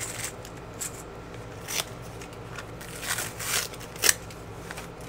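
Small plastic bags of metal snaps and packing wrap being handled on a table: scattered crinkling and rustling, with a sharp tap about four seconds in.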